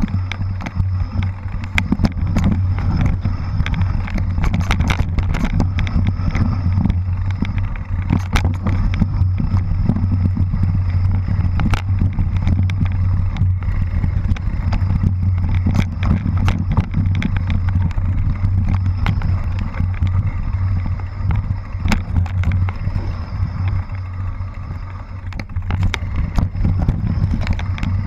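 Mountain bike riding over a rough dirt trail, heard from a camera mounted on the bike or rider: a steady low rumble with frequent clicks, knocks and rattles as the tyres go over roots and stones.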